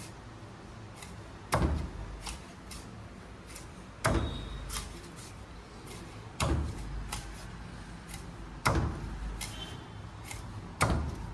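Heavy knife chopping a large seer fish (vanjaram) into steaks on a cutting block: five hard chops through the backbone, about two seconds apart, with lighter knife taps and clicks between them.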